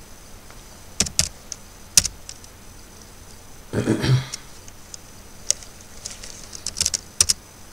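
Sharp clicks of a computer keyboard and mouse: a few single clicks, then a quick run of them near the end, with a brief louder noise about four seconds in.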